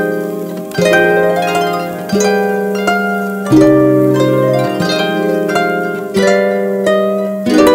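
Background music: a plucked-string melody, the notes picked out at a steady pace over a held low note, ending in a downward pitch slide near the end.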